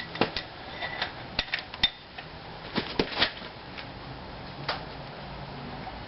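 Hand tools working on steel brake and hub parts: scattered sharp metallic clinks and taps, several close together about three seconds in, from socket and wrench work on the brake disc-to-hub bolts.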